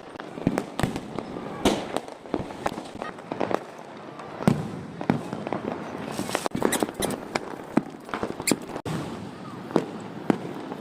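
Diwali firecrackers and fireworks going off: a dense, irregular run of sharp bangs and pops, several a second.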